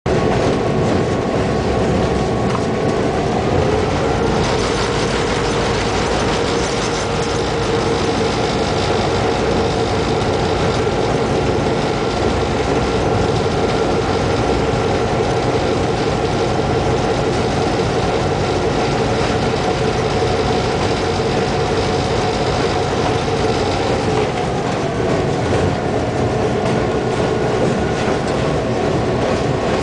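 Diesel locomotive engine running steadily, heard from the cab while the train moves along the track, with wheel noise on the rails. The engine's pitch rises a few seconds in and drops back again a few seconds before the end.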